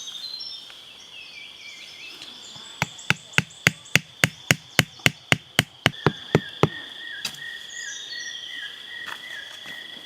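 A quick run of about fifteen sharp strikes on wood, roughly four a second, as wood is chopped or knocked while a trap is made. A steady high insect drone and bird chirps carry on underneath.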